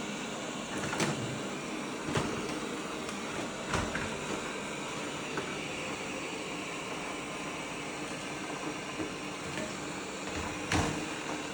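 A steady machine whir with hiss, with a few soft knocks about a second in, around two and four seconds in, and once more near the end.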